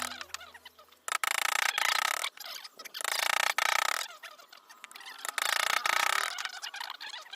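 Wood being carved: repeated scraping cutting strokes about a second long, with sharp taps between them.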